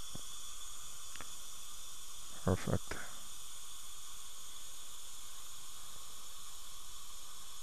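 Steady high hiss of running dental equipment, with two faint ticks in the first second or so.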